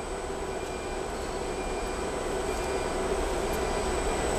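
Steady machine hum and hiss of a factory floor with a thin high whine, growing gradually louder.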